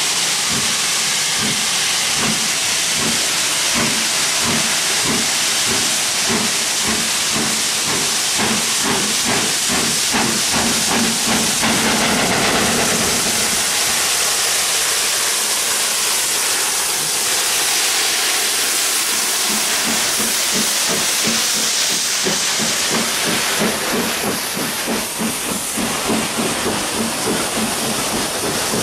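British Railways Standard Class 9F 2-10-0 steam locomotive working a goods train away with a steady rhythm of exhaust beats over loud steam hiss. Near the end its wagons roll past with a quick, regular clicking of wheels.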